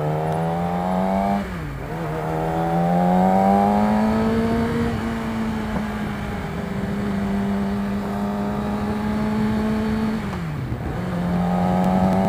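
Yamaha R6's 600cc inline-four with an Akrapovic exhaust under way. Revs climb, then drop sharply at an upshift about a second and a half in, climb again, and settle into a steady high-revving cruise. Near the end the revs dip briefly at another gear change and pick up again.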